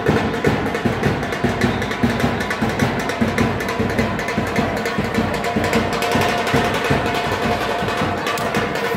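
Music with a fast, steady percussion beat.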